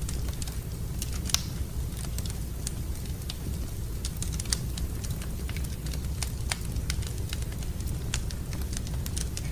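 Wood fire crackling, with irregular sharp pops and snaps over a steady low rumble; two pops stand out, one just over a second in and one about halfway.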